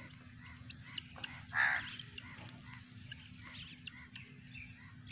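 Birds chirping in the background, with short scattered calls and one louder, harsher call about a second and a half in.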